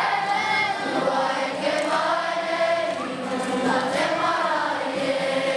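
Many voices singing together in a choir-like chorus, holding and gliding through sustained notes.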